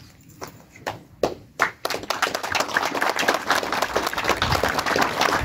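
A small group of people clapping: a few scattered claps at first, then steady applause from about two seconds in.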